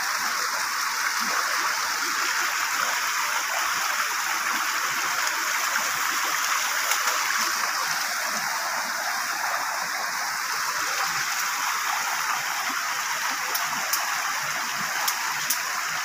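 Steady rushing of a swollen, muddy river running high after heavy rain. A few faint ticks come near the end.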